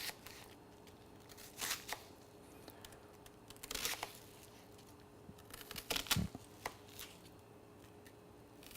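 A few brief rustling and scraping sounds of food being handled in the kitchen, spaced a second or two apart, with quiet room tone between them.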